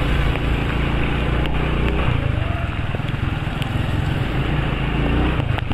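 Motorcycle engine running while riding, over a steady rush of wind and wet-road noise. The engine note shifts about two seconds in.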